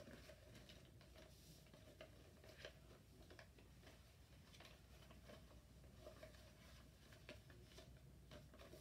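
Faint rustling of a sheet of paper being folded and creased by hand, with irregular soft crinkles.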